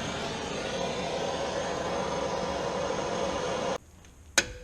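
Propane torch burning with a steady hiss, heating a seized brake fitting to free it. It cuts off suddenly near the end, followed by one sharp click.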